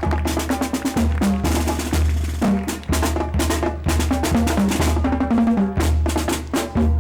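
Marching band drums playing a rapid cadence: quick snare strikes over bass drum, with some pitched notes in between.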